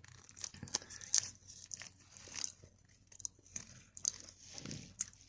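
Close-up eating sounds: a person biting and chewing food near the microphone, with irregular crunches and wet mouth clicks.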